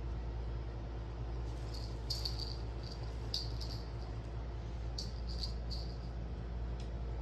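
Cat playing with a wand toy: scattered light, high-pitched rattles in a few short clusters, over a steady low hum.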